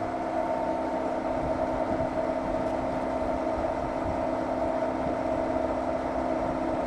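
Milling machine running steadily on an aluminum part: an even mechanical hum with several steady tones and no strikes or breaks.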